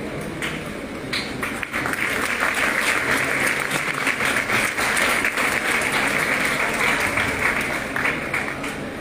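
Audience applauding, a dense patter of many hands clapping that swells about two seconds in and eases off near the end.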